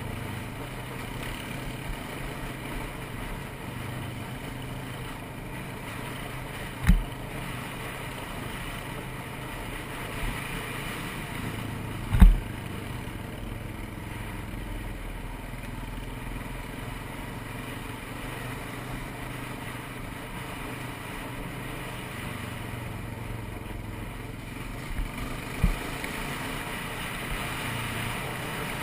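ATV engine running steadily on a trail ride, with a few sharp low thumps, the loudest about twelve seconds in.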